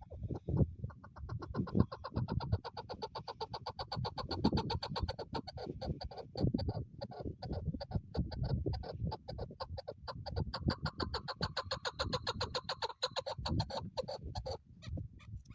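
Chukar partridge calling: a long, rapid run of repeated clucking notes, several a second, over a low rumble, stopping near the end.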